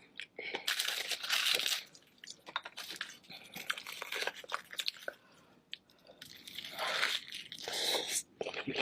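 Close-miked eating of king crab: crunching and chewing, with many sharp clicks and two longer crackling stretches, about a second in and near the end.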